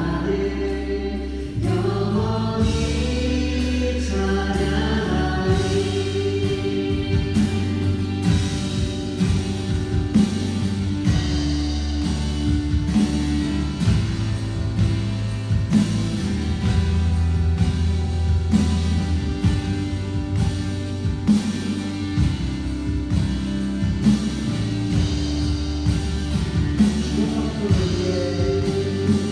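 A congregation or choir singing a Korean worship song in unison over a steady instrumental accompaniment.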